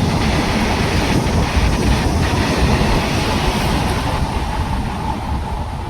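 A train passing at speed: a steady rush of wheel and rail noise with a few wheel clacks over rail joints, easing slightly near the end.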